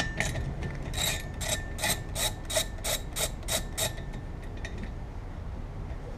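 Hand socket ratchet clicking as it is worked back and forth to loosen a windshield wiper arm nut, a quick run of about four clicks a second for about three seconds.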